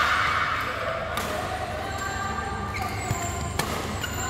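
Badminton rackets striking a shuttlecock in a doubles rally: a few sharp taps, the loudest about three and a half seconds in.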